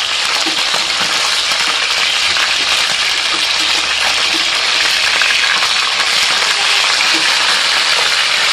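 Tilapia frying in hot oil in a pan, a steady sizzle.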